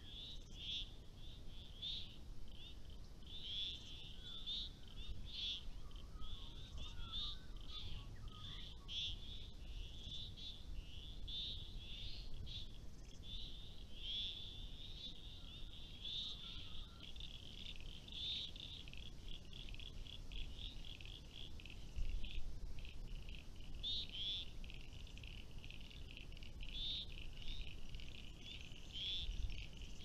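A chorus of small frogs, their short, high chirping calls overlapping without a break, over a soft low rumble.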